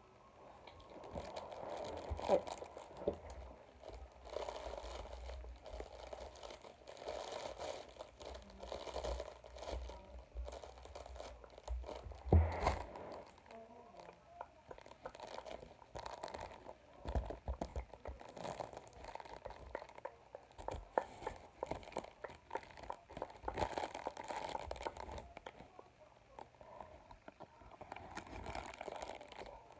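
Close-miked crunching and crinkling, ASMR-style, with dense irregular clicks and two louder knocks, about two seconds and twelve seconds in.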